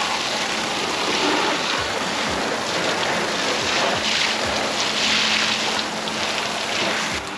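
Garden hose spraying water onto a kayak, rinsing off the soap and dried ocean salt: a steady hissing spray and splash that swells and eases a little as the stream moves over the hull.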